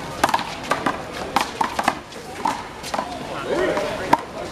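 A one-wall handball rally: a quick string of sharp smacks as the rubber ball is struck by hand and rebounds off the wall, with voices of players and onlookers in between.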